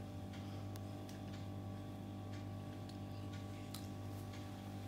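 Quiet room tone: a steady low hum with a few faint scattered clicks.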